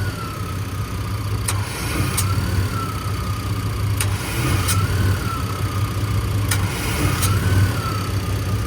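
A 1994 Chevrolet C1500 pickup idling steadily with its AC compressor cycling during a refrigerant charge. A faint whine rises and falls every two to three seconds, and a few sharp clicks come through at irregular moments, as from the compressor clutch.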